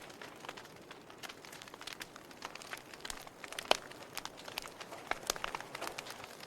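Wood fire crackling in a fireplace: irregular snaps and pops over a soft hiss, with one sharper pop about three and a half seconds in.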